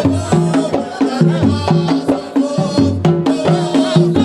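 Arabic wedding music: drums striking a steady, quick rhythm under a repeating melody line.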